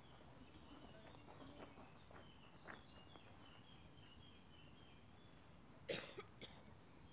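Quiet evening hilltop ambience: a faint, high insect chirp repeating evenly about three times a second, with some fainter twittering in the first few seconds. Just before the end, a single brief, louder noise like a cough.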